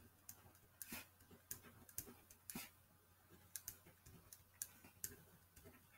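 Faint scratches and small clicks of a marker pen writing numbers on paper, a few strokes each second.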